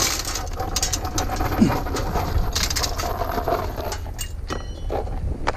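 Scrap items being handled and dropped into a box: irregular clinks, knocks and rustling, with one sharp knock about a second and a half in.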